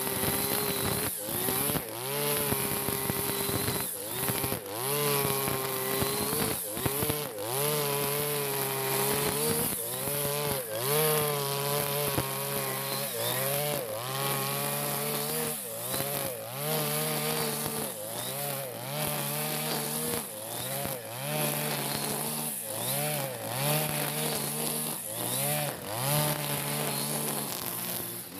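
Freshly serviced petrol brush cutter engine running at high revs while cutting tall grass. It is throttled up and let back down again and again, about every one to two seconds.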